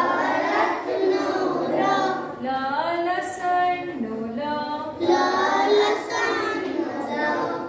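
Sing-song chanting of the Gujarati consonant letters, recited to a melody as the letters are pointed out on the board.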